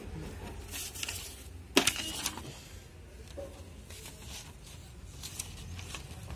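A sheet of paper being handled and set into an inkjet printer's rear paper tray: paper rustling and clicking, with one sharp knock about two seconds in, then only faint ticks.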